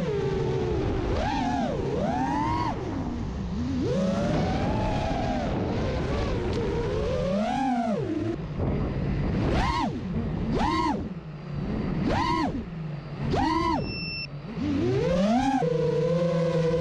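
A 5-inch FPV quadcopter's brushless motors and tri-blade propellers on 3D-printed folding hubs, heard from the onboard camera: a whine whose pitch rises and falls with the throttle. In the second half it makes four quick throttle punches about a second apart, then holds a steady pitch near the end.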